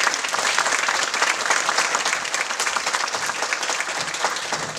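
Audience applauding, many hands clapping steadily, easing off slightly near the end.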